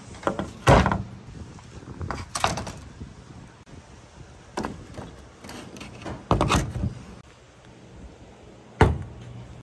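Stone blocks being set down on wooden slope boards: a handful of separate knocks, the loudest about a second in and another near the end.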